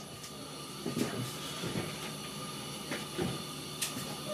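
A fridge door is opened, with a few soft knocks and clicks of handling, over a steady background hiss and hum.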